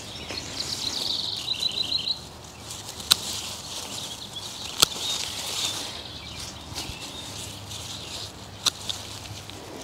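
Hand pruners snipping spent salvia stems: three sharp clicks, two loud ones about three and five seconds in and a softer one near the end. Birds chirp in the background, with a quick run of repeated high notes about a second in.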